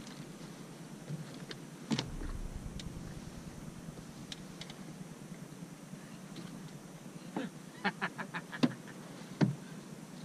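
Sharp knocks and clicks on a fishing boat's hull and gear as an angler stands up and takes hold of a rod in its holder. There is a single knock early on and a quick run of clicks and knocks near the end.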